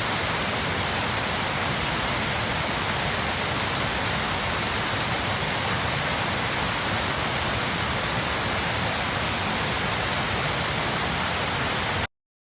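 Water pouring over a reservoir spillway and cascading into a creek: a steady, loud rush that cuts off suddenly near the end.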